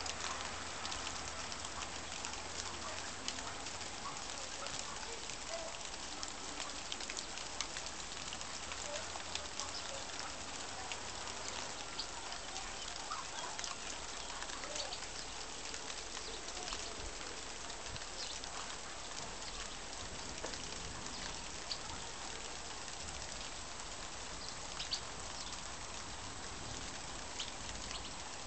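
Outdoor ambience: a steady hiss dotted throughout with many small crackling ticks.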